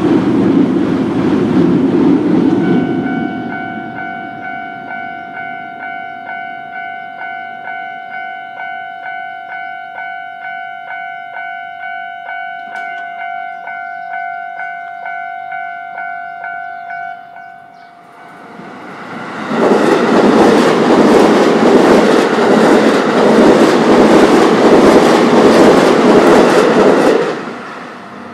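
Japanese railway level-crossing alarm ringing: a repeating electronic bell, about two strikes a second, that stops after about fifteen seconds. Then a train passes over the crossing for about eight seconds with loud rushing and rapid clatter of wheels on rail. A loud rushing noise also fills the first couple of seconds.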